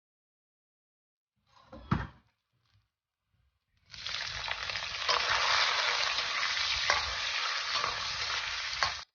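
A single knock about two seconds in, then a loud, steady sizzling hiss with scattered pops that starts suddenly about four seconds in and cuts off abruptly just before the end.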